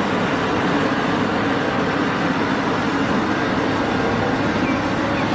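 Caterpillar 6015B hydraulic mining excavator running steadily as it loads sand into a dump truck: a heavy, even machine noise with a low hum underneath.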